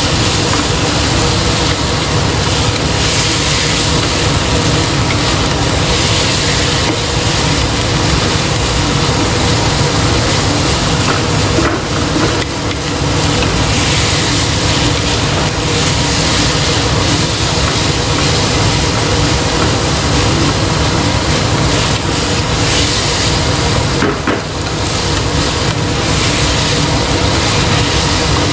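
Minced beef frying in hot oil with aromatics, a steady loud sizzle.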